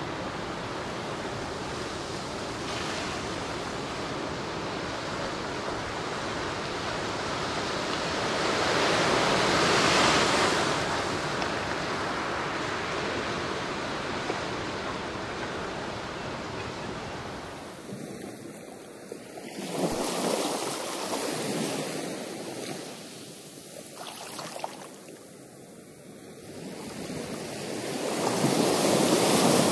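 Ocean surf washing onto the shore, a steady rush that swells as waves break about ten seconds in, again around twenty seconds and near the end. The sound thins abruptly a little past halfway.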